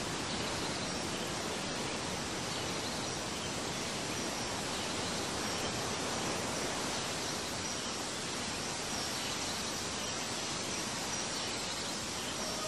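Steady, even rushing noise of a recorded nature ambience, with no music.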